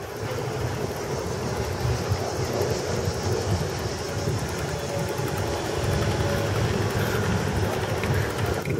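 Wind buffeting the microphone over the rolling noise of riding a bicycle along a paved road: a steady low rumble.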